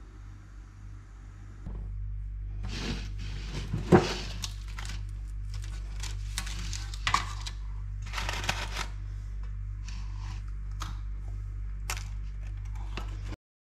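Round metal cookie tin being opened and handled: a loud sharp clank as the lid comes off about four seconds in, then scattered clicks and rustling of the paper cups as a butter cookie is picked out, over a steady low hum.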